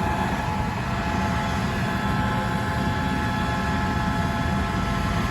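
John Deere S660 combine harvester running steadily while harvesting corn: an even mechanical drone with a few held whining tones and no sharp knocks.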